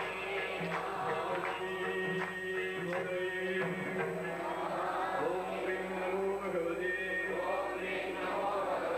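Devotional group chanting: several voices singing a bhajan together with music. Sharp percussive strikes fall through it, most of them in the first half.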